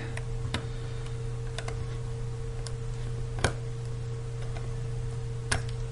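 Small clicks and taps of a plastic spudger against an iPhone 4S's internals as the battery connector is pried up, with one sharper click about three and a half seconds in and another near the end.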